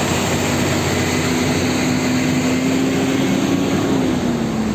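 Steady engine-like machine noise with a low hum that sags slightly near the end, cut in and out abruptly.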